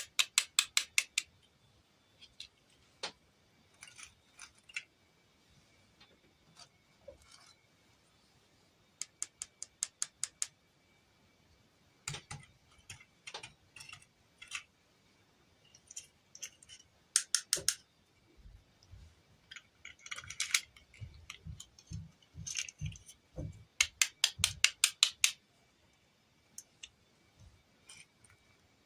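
Small plastic toy pieces and packaging being handled close to the microphone: four runs of rapid clicking, each about a second long, with scattered taps and soft rustles between.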